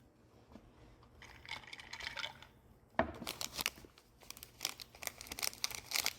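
Crinkling and tearing of a pastry being unwrapped and pulled apart, in short rustling bouts, with a sharp tap about three seconds in.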